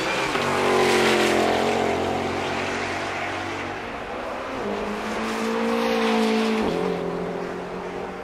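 Car engines running hard past the spectators, the engine note swelling twice, loudest about a second in and again around six seconds in, with sudden jumps in pitch.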